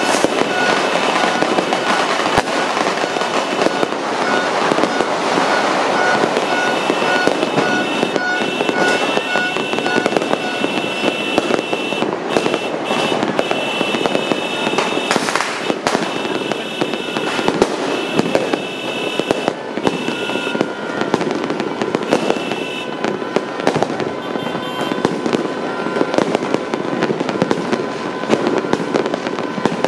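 Massed New Year fireworks and firecrackers going off across the city without pause: a dense, unbroken crackle of many small pops and bangs. Steady high tones sound over the crackle for much of the time, thinning out near the end.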